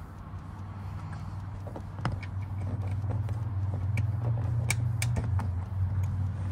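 Plastic push-pin retainer clips clicking sharply a few times as they are thumbed into a plastic engine-bay cover, over the steady low hum of an idling engine.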